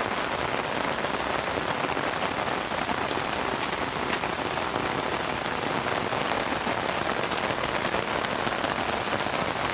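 Heavy rain falling steadily: a dense, even hiss of raindrops striking surfaces, made of countless fine ticks.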